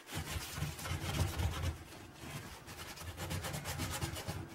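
Scrub sponge rubbed quickly back and forth over a porcelain sink, scouring off old putty residue. The rasping strokes are louder in the first second and a half, then go on more softly.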